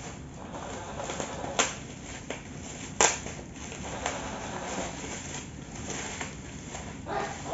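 Bubble-wrap and plastic packaging being handled and pulled open by hand: crinkling and rustling, with a few sharp snaps. The loudest snap comes about three seconds in.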